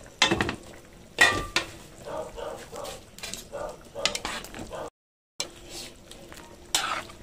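Metal clanks of a pot lid and utensil against an aluminium cooking pot, then a utensil stirring the thick simmering adobo of chicken livers and gizzards in the pot, with more clanks near the end.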